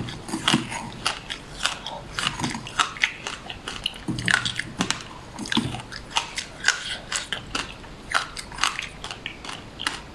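Close-up eating: crunchy food being bitten and chewed, an irregular run of sharp crunches and clicks, several a second.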